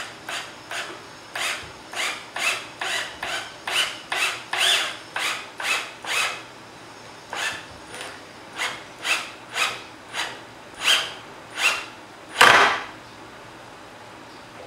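Cordless drill driving a screw through the leg frame into the wooden tabletop, its trigger pulsed in short whirring bursts about two a second. It ends with one longer, louder burst a little past twelve seconds as the screw seats, then stops.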